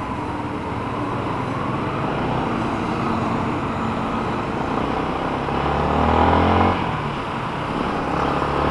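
Yamaha Sniper 155's single-cylinder engine pulling away and accelerating, over wind and road noise. Its note rises, drops off suddenly about seven seconds in, then climbs again.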